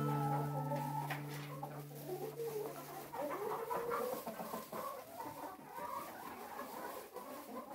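A flock of chickens clucking and murmuring, with irregular wavering calls. The held last notes of background music fade out over the first few seconds.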